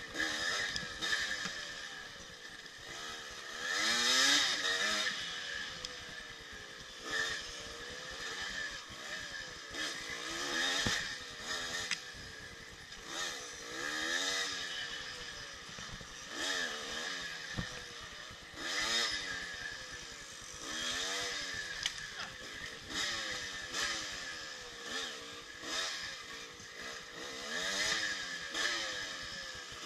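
1984 Yamaha IT200's 200 cc two-stroke single engine revving up and falling back over and over, its pitch rising and dropping every two to three seconds as the throttle is worked on and off through the trail's turns.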